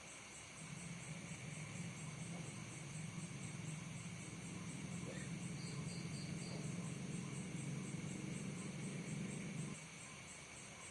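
Crickets chirping in a fast, even trill throughout, with a low rumbling noise that comes in just under a second in, swells slightly, and cuts off suddenly near the end.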